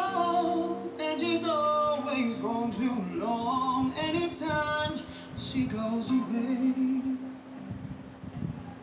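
A song with a singer playing through a Bluedio CS4 stereo Bluetooth speaker, heard through the room rather than direct, at a moderate volume during a loudness test.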